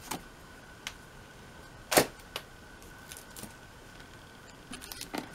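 A few light knocks and taps as a photo booklet and an album are handled and set down on a table, the loudest knock about two seconds in and a cluster of small clicks near the end. A faint steady high-pitched tone runs underneath.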